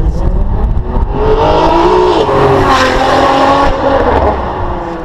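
Ferrari 599 GTO's V12 engine accelerating hard and loud. Its pitch climbs, drops at an upshift a little over two seconds in, climbs again, then fades as the car draws away.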